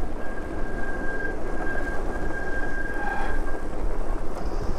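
Super73 electric bike riding along a bumpy dirt trail: a steady, rough rumble of tyres and bumps, with a thin, steady high whine that stops about three-quarters of the way through.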